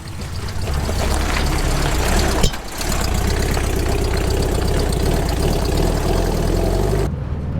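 VW split-window bus engine running at low speed as the bus crawls over a rocky, rutted trail, with a dense rattle and jostling of the body and load. A single sharp knock comes about two and a half seconds in, and near the end the rattle drops away, leaving the engine hum.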